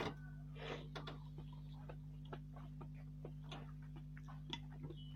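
Close-miked eating of chicken noodles with meatballs: irregular small chewing and mouth clicks, a few short slurps, over a steady low electrical hum.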